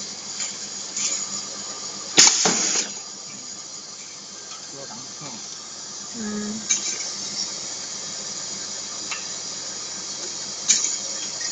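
Pneumatic eyelet-setting press firing: a sharp metallic clack about two seconds in, followed by a short blast of hissing air exhaust, and a second, shorter clack and hiss near the end. A faint steady hiss runs underneath.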